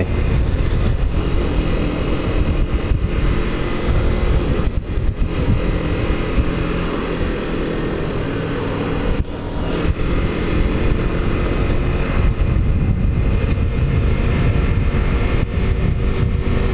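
Kawasaki Ninja 300 parallel-twin engine running at a steady cruise while riding, its pitch shifting slightly, over heavy wind noise on the helmet microphone.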